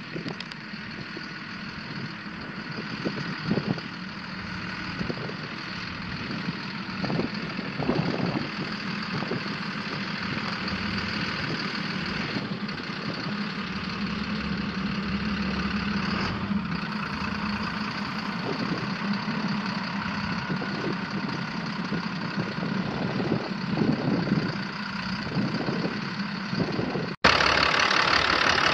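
Caterpillar 6.6-litre six-cylinder diesel engine of a 1996 GMC C6500 truck, idling steadily with diesel clatter. Near the end the sound cuts abruptly to a louder run of the engine.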